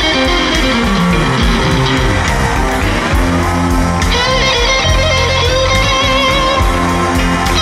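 Live electric blues band: a Stratocaster electric guitar plays a lead with bent, wavering notes, holding one long note from about three seconds in, over bass guitar and drums.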